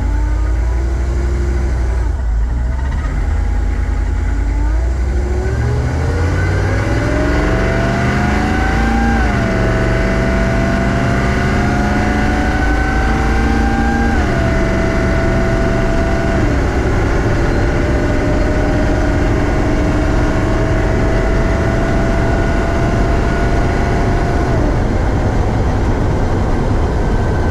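A HMMWV's 6.5-litre diesel pulling away and accelerating through the gears of its 4L80E automatic. The engine note rises slowly, then drops at each upshift, about four times, over steady road noise.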